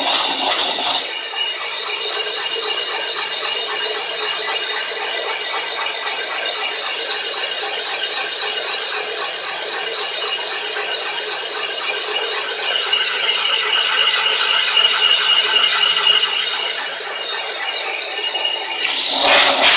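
Van Norman 777S boring bar running, its cutter boring out a cylinder of a cast-iron 454 big-block Chevy block under automatic feed, with a steady grinding rattle of the cut. It is louder for about the first second and again near the end.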